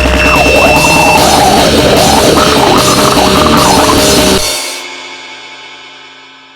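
Loud, dense goregrind noise music that stops abruptly about four and a half seconds in, leaving a ringing tail that fades away.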